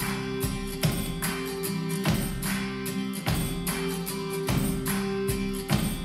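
A strummed guitar piece played back through Canton Plus XL loudspeakers and picked up in the room. Sharp strokes come roughly once a second over steady held notes.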